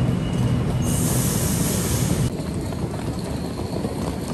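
Electric suburban train at an underground station platform: a low, steady rumble with a thin squealing tone, and a burst of high hiss about a second in that lasts a second and a half. After that the sound drops to a quieter rumble.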